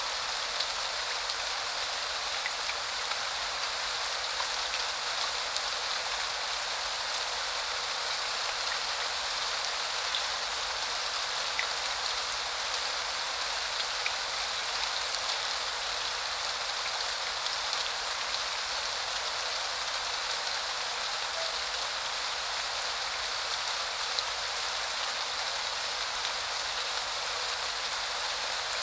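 Steady rain falling: an even hiss of rain with small drop ticks scattered through it.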